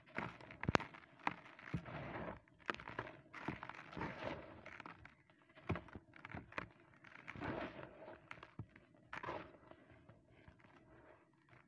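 Dry, crumbly concrete-style chunks crunching and breaking apart in bare hands, with gritty dust and gravel pouring and rustling into a plastic bucket. Irregular sharp crackles over a grainy hiss, quieter near the end.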